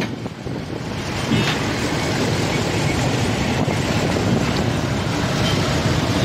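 Heavy tractor truck and multi-axle trailer carrying a bridge girder passing close by: steady engine and road noise.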